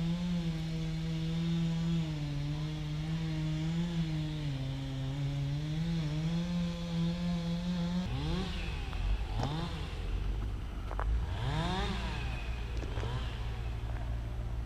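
An engine running steadily at one speed, then revved up and down several times from about eight seconds in.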